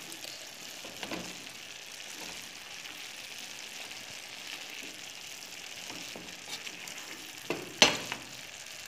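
Chopped spinach and vegetables sizzling in a frying pan while a wooden spoon stirs them, with a steady hiss. There is one sharp knock near the end.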